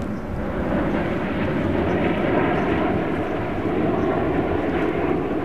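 Airbus A380's four Rolls-Royce Trent 900 turbofan engines as the airliner flies overhead: a steady jet rumble with a faint steady whine.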